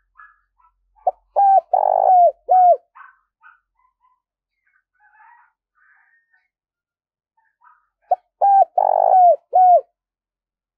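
Spotted dove cooing: two phrases about seven seconds apart, each of four notes with the third held longest.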